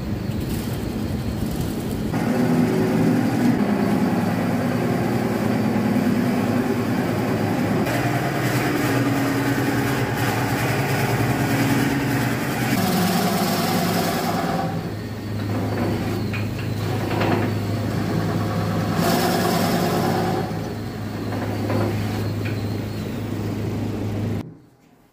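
A wood lathe running with a tool cutting into the spinning wooden vessel, a steady motor hum under the noise of the cut. The sound shifts several times and cuts off abruptly near the end.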